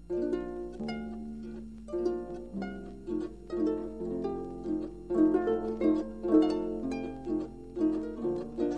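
Solo harp playing a cheerful tune, plucked notes and chords in a steady rhythm, each ringing on briefly, played back from a vinyl 45 rpm record.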